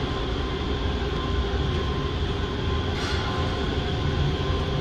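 Steady low rumble of running machinery with a faint constant hum on top, unbroken throughout.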